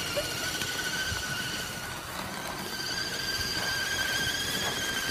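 Axial SCX10 RC crawler's electric motor and gearbox whining steadily at a high pitch, edging slightly higher, as it tows a loaded sled over snow.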